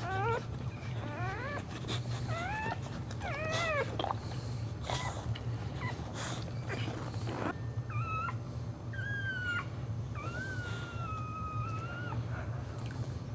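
Dog whining and whimpering in high, wavering cries: first a run of short rising-and-falling whimpers, then longer drawn-out whines held for a second or two in the second half, over a low steady hum.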